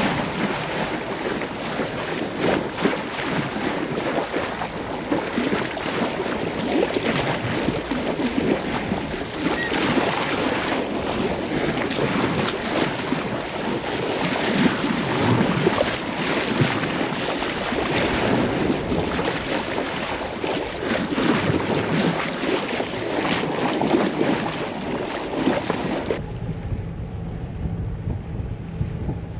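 Water rushing and splashing along a sailing yacht's hull under way, with wind buffeting the microphone. A few seconds before the end it cuts suddenly to a duller, steadier low rumble.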